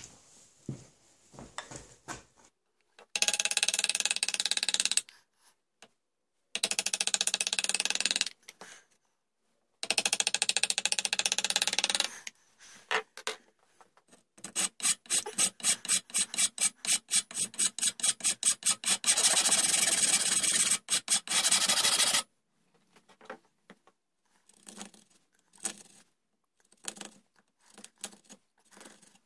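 A hand rasp is scraped across the wooden gunstock. It starts with three separate bursts of about two seconds each, then a run of quick, even back-and-forth strokes lasting about eight seconds. Near the end there are only faint scattered ticks of a chisel paring the wood.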